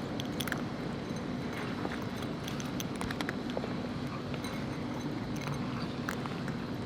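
Cats eating dry food: small, irregular crunches over a steady low background rumble.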